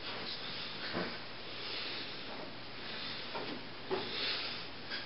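Steady hiss with a few soft knocks and rubbing sounds: handling noise from puppeteers shifting behind the stage board.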